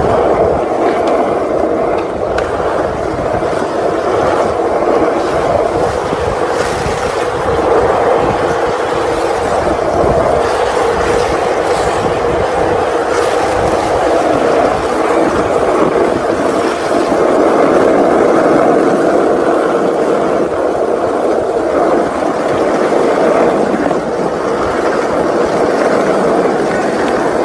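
Skateboard wheels rolling on street asphalt: a steady, loud rumble with a few faint clacks, heard from a rider's board on the move.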